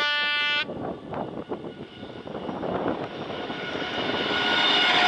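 ZSSK class 754 diesel locomotive's horn sounding a single blast that cuts off about half a second in. Then the locomotive's diesel engine and the train's wheels grow steadily louder as it approaches and passes.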